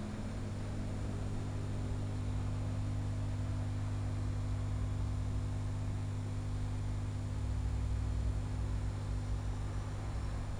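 Steady low electrical hum, like mains hum, under a layer of even hiss.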